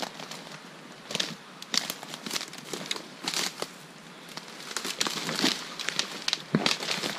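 Dry twigs and thorny brush scraping, crackling and snapping in irregular bursts as someone pushes through a dense thicket.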